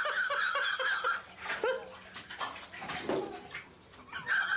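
Water splashing and sloshing in a filled bathtub as a cat thrashes about in it. A drawn-out high-pitched cry runs through the first second and comes again briefly near the end.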